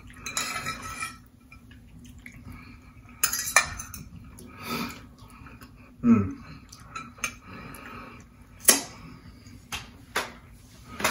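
Metal fork clinking and scraping on a plate while eating, in scattered sharp clinks a few seconds apart.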